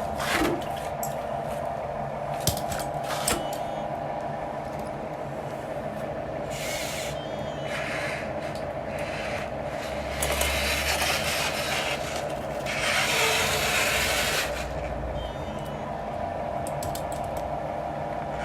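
Radio-controlled construction machine running: a steady whine from its small electric motors and gears, with a few clicks near the start and several bursts of scraping and rasping in the middle as it works loose soil.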